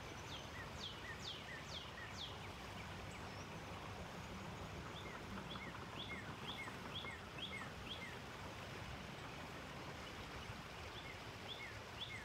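A bird singing phrases of quick, downslurred whistled notes: four clear notes about half a second apart near the start, then faster runs of paired notes in the middle and again near the end. Under it, a steady outdoor background hiss.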